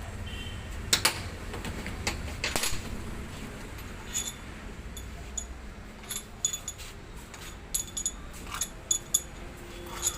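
Metal hand tools and engine parts clinking and tapping during the teardown of a diesel engine. There are scattered sharp ringing ticks, coming quicker and more often in the second half.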